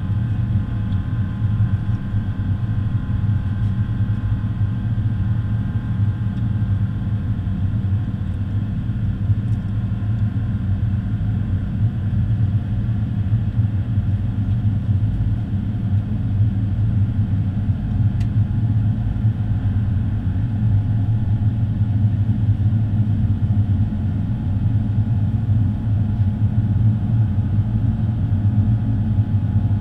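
Airbus A350's Rolls-Royce Trent XWB turbofan engines and airflow in the climb after takeoff, heard from inside the cabin as a loud, steady low rumble. A faint higher engine whine fades out over the first several seconds.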